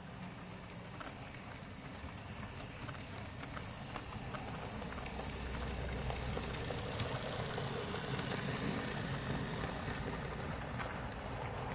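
Model train's coaches running over pointwork, with a rolling rumble and irregular clicks of wheels crossing rail joints and frogs. The rumble grows louder about halfway through as the coaches pass close by.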